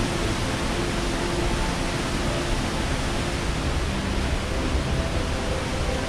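Waterfall rushing: a steady, unbroken roar of falling water.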